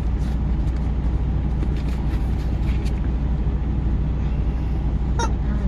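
Vehicle engine idling with a steady low hum, heard from inside the parked cab, with scattered light clicks and rustles and one short sharp squeak about five seconds in.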